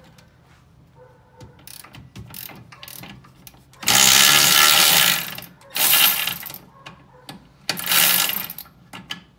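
Cordless electric ratchet spinning a 17 mm nut off an upper ball joint stud, running in three loud whirring bursts: a long one about four seconds in, then two shorter ones. Light clicks of the socket being fitted come before the runs.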